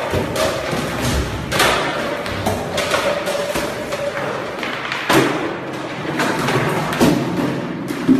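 A series of heavy thuds and knocks, about five spread a second or more apart, the loudest about five seconds in and again near the end, as students scramble and bang against wooden school desks.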